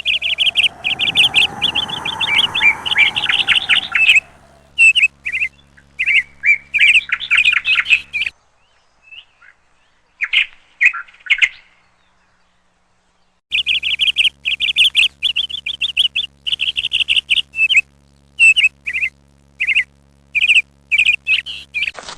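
A songbird chirping in quick runs of short, high notes, with a near-silent pause in the middle. A lower tone swells and fades underneath during the first four seconds.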